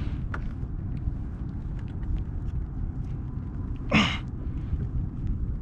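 Wind buffeting the microphone in a low, steady rumble, with a few faint ticks and a brief rushing sound about four seconds in.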